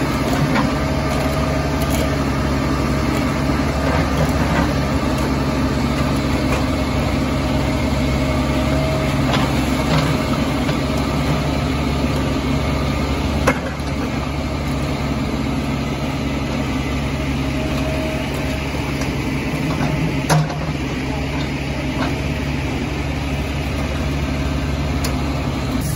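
Caterpillar 416E backhoe loader's diesel engine running steadily, with a few short knocks from the machine working the garbage pile.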